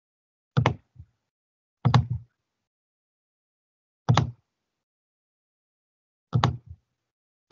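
About five short clicks and taps at a computer, irregularly spaced a second or two apart, with dead silence between them where the call's microphone gate cuts out.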